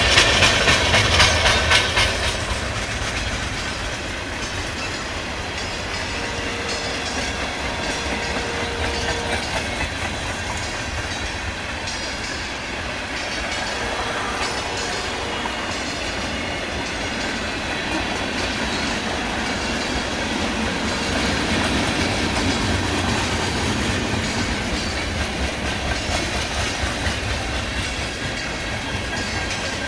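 Freight train rolling past, a string of boxcars and tank cars, with the wheels clacking steadily over the rail joints over a constant rumble. The clacking is loudest in the first couple of seconds.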